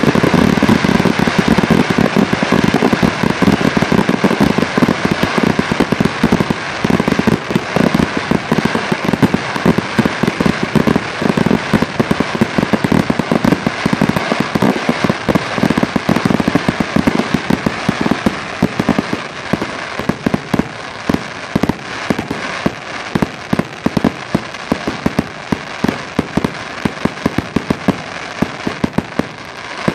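Fireworks finale barrage: many shells bursting in rapid, overlapping bangs, easing off a little toward the end.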